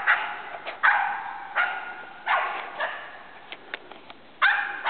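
Border terrier barking repeatedly in short, sharp barks, about six in all, with a pause of about a second before the last. The dog is baying at a wounded wild boar it has tracked down.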